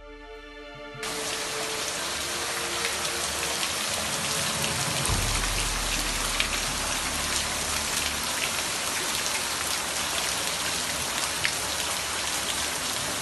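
Rain falling steadily on flooded streets: an even hiss with scattered sharper drop ticks, cutting in suddenly about a second in.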